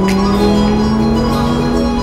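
Music with sustained held tones that glide slightly in pitch, with bell-like sounds.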